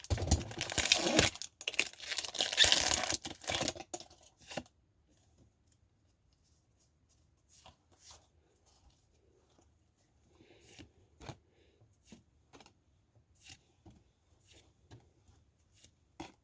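A Pokémon TCG booster pack's foil wrapper being torn open and crinkled for about four seconds, followed by scattered faint clicks and taps of the cards being handled.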